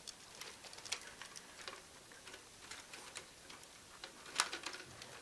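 Faint, irregular clicks and light knocks of the plastic Lego Technic model rattling and shifting as it is turned over in the hands, with one louder click about four and a half seconds in.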